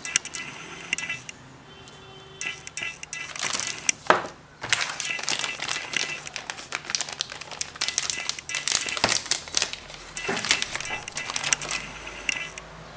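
Hand-handling noises from a small electronic diagnostic tool being taken apart: irregular crinkling, scraping and clicking, over background music.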